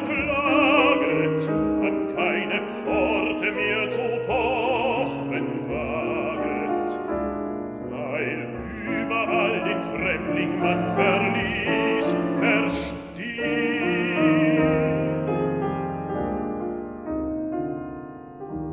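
Baritone singing a German art song with a wide vibrato over grand piano accompaniment; about three-quarters of the way through, the voice stops and the piano plays on alone.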